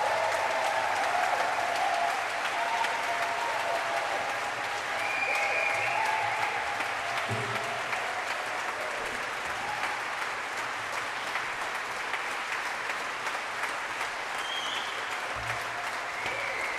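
Audience applauding, easing off slightly as it goes on.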